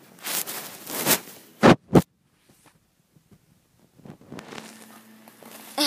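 Handling noise from the camera: rustling and scraping against the microphone, with two loud sharp knocks close together about two seconds in, then faint rustling near the end.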